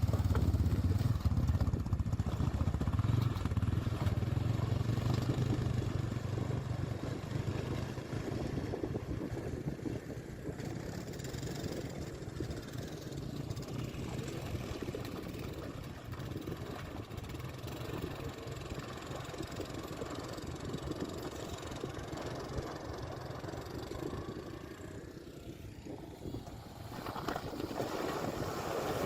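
2022 CFMoto ZForce 950 HO EX side-by-side's V-twin engine running under way on a trail, with continuous rough ride noise. A low engine drone is strongest for the first several seconds; the sound dips a few seconds before the end and then picks up again.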